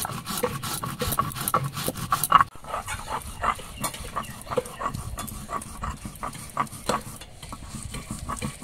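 Cumin seeds being ground on a sil-batan: a stone block rubbed back and forth on a flat grinding stone, making rapid rhythmic rasping scrapes that come thickest in the first couple of seconds.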